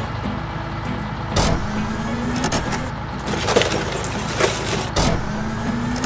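Heavy vehicle engine running, its pitch rising twice as it revs, with several knocks and clatters of junk being shoved by a wheel loader's bucket.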